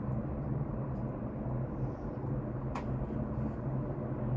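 Steady rumbling hum inside a moving cable-car gondola, with one short click a little under three seconds in.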